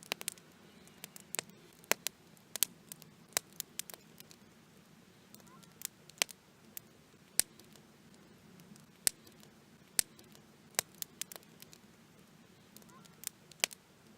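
Campfire crackling: irregular sharp snaps and pops, about two a second on average, over a faint low hum.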